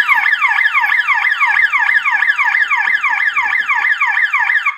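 Intruder-alarm siren sounding after its panic button is pressed: a loud electronic wail of rapidly repeating falling sweeps, about four a second, that cuts off suddenly near the end when the alarm is reset.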